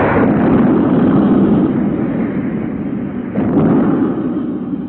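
Loud, deep rumbling noise that swells at the start and again about three and a half seconds in.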